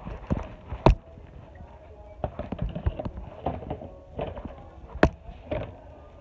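Scattered knocks and rustles close to the microphone as the phone is jostled low to the floor and a dog's fur brushes against it, with the two sharpest knocks about a second in and near the end, over faint background music.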